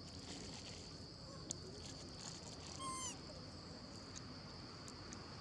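Steady high-pitched insect drone with a single click about a second and a half in and one short, high animal call about three seconds in.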